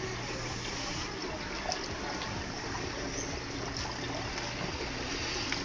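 Aquarium filtration water trickling and splashing steadily into display tanks, with a steady low pump hum underneath.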